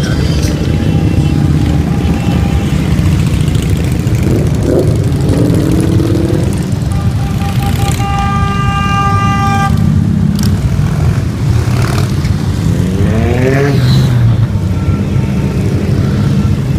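A procession of cruiser motorcycles riding past with a dense, steady low engine rumble. A horn is held for about two seconds around the middle, and a little later one engine revs up with a rising pitch.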